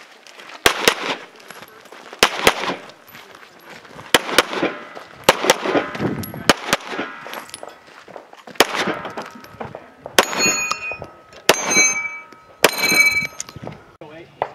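Handgun shots fired in a stage of a 3-gun match, about a dozen, several in quick pairs. Near the end come three shots about a second apart, each followed by the clang and ring of a hit steel plate target.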